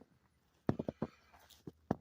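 Footsteps in about an inch of fresh snow: a quick run of short crunching steps about two-thirds of a second in, then two more single steps near the end.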